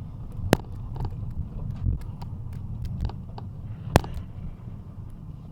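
Steady low engine rumble with sharp clicks, the two loudest about half a second in and about four seconds in.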